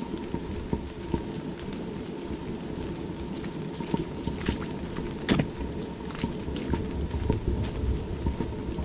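Steady rain falling through the trees of a wood, with scattered sharp taps of drops and one louder tap about five seconds in, over a low rumble that comes in at the start.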